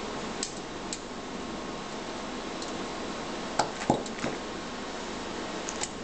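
Small metallic clicks and taps as the video card's metal bracket and its locking screw are fiddled into place against the computer case's slot rail, over a steady hiss. The loudest few knocks come about four seconds in.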